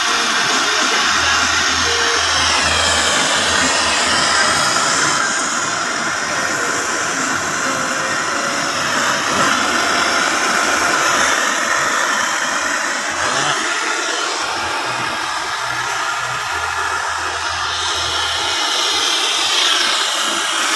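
Brazing torch flame hissing steadily as it heats the copper tubes of an air-conditioner evaporator coil to braze shut pinhole leaks.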